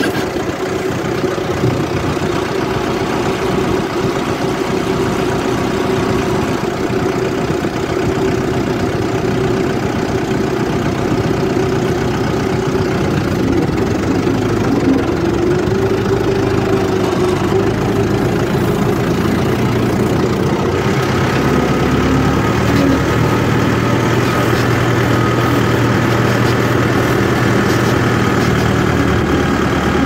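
Farm tractor's diesel engine running steadily while the tractor drives along, heard from the driver's seat. Its deep hum grows stronger in the second half.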